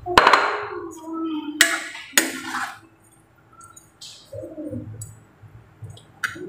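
Metal ladle knocking and scraping against a coated wok while stirring chicken in coconut-milk sauce: a sharp clink near the start with a brief ring from the pan, then two longer scrapes about a second and a half and two seconds in.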